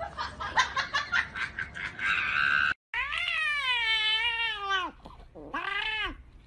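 A cat meowing: one long, drawn-out meow of about two seconds, then a shorter second meow. Before the meows, a quick run of clicks and taps.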